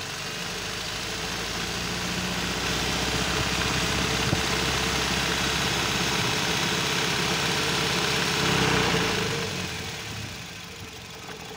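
A 2010 Nissan Sentra's four-cylinder engine, manual transmission, brought up and held at about 2000 rpm, carrying the noise of a damaged dual-mass flywheel as the owner diagnoses it. The revs drop back near the end.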